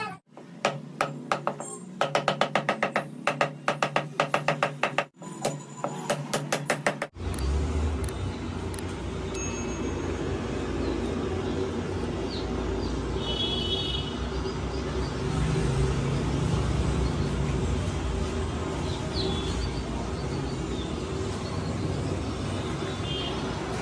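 Intro music with a quick, evenly spaced percussive beat for about seven seconds, then a sudden change to a steady background hum and rumble with a few faint clicks.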